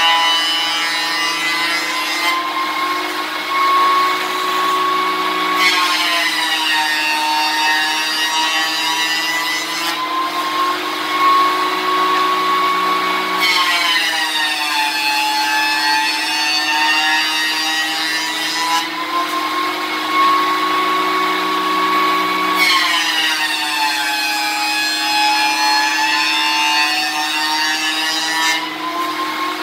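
Cutech 6-inch benchtop jointer with a carbide-insert cutterhead running with a steady motor whine. Three times, about six, fourteen and twenty-three seconds in, a board is fed across the cutterhead: the motor's pitch drops under the load and a hissing cutting noise rises for several seconds, then the motor climbs back to speed.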